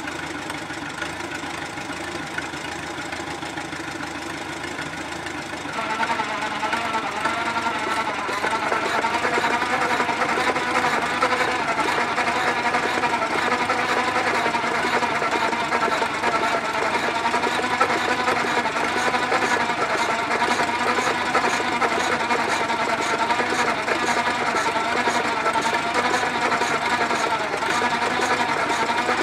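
A 1.5 hp Sattley hit-and-miss engine being spun over by a tractor's V-belt in an attempt to start it, together with the tractor engine driving it: a steady mechanical clatter that gets louder about six seconds in.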